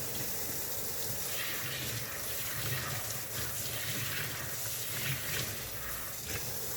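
Tap water running steadily into a sink while a foam vacuum filter is rinsed under it, with small splashes.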